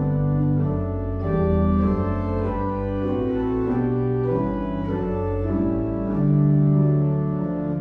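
Church organ playing a hymn in full sustained chords that change every half second to a second, with no singing.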